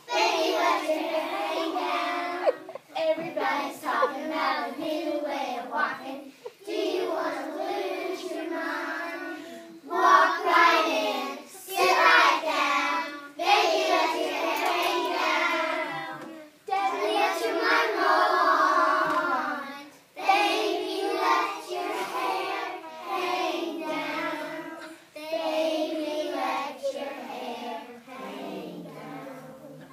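A group of preschool children singing a song together, phrase after phrase with short breaks between.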